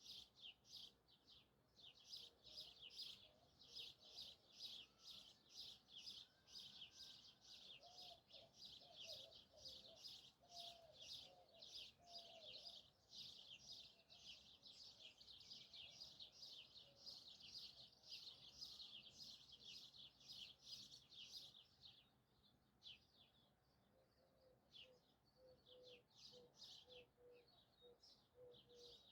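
Birds calling faintly: a fast, even series of high chirps, several a second, that thins out about three quarters of the way through, with a few lower, softer calls underneath.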